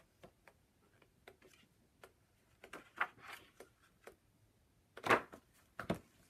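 Pages of a large softcover paper doll book being turned by hand: soft paper rustles and small taps, with two louder page flaps near the end.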